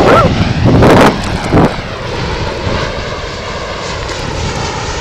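Airliner flying low overhead: steady engine noise whose tone slowly shifts as it passes. Louder close-up knocks or splashes sound near the microphone in the first second and a half.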